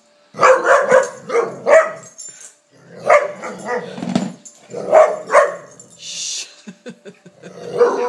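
Dog barking excitedly in quick runs of several sharp barks at a time, with short pauses between the runs, while it play-bows at a lampshade.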